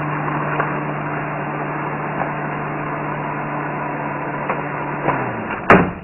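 A steady low machine-like hum over a noisy hiss. The hum drops in pitch and dies away about five seconds in, followed by a single sharp click near the end.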